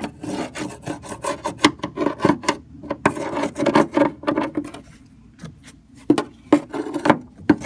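Dirt and rotted plywood being scraped and peeled away from a boat hull. It is a run of short, rasping scrape strokes, with a brief pause about two-thirds of the way through.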